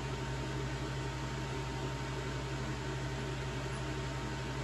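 Steady low hum with a constant hiss and a faint high tone, unchanging throughout: the drone of a running machine such as a fan or other appliance in the room.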